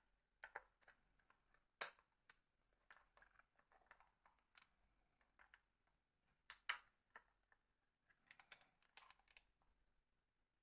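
Faint, irregular clicks and taps of an old NEC mobile phone and its parts being handled, with a louder tap about two-thirds of the way through.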